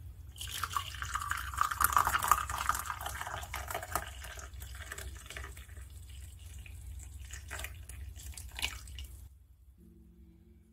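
Rosemary tea poured in a thin stream into a ceramic cup, the pour loudest in its first couple of seconds, then thinning into a few drips and stopping about nine seconds in.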